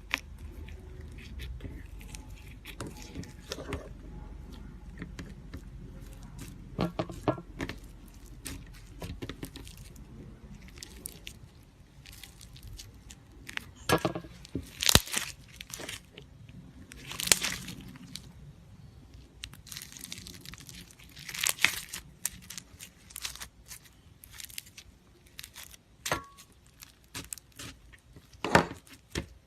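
Slime being squeezed and stretched by hand, giving irregular sticky pops, crackles and tearing sounds, with a few louder snaps scattered through.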